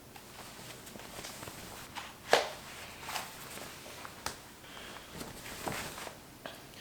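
Scattered movement and handling noises: irregular light knocks and rustles, with one sharp click about two seconds in.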